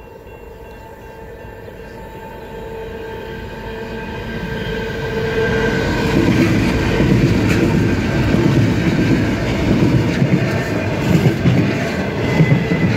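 Level crossing bells ringing as a freight train led by three NR class diesel-electric locomotives approaches, growing steadily louder until the locomotives pass about six seconds in. Container wagons then roll by, their wheels rumbling with occasional sharp clicks.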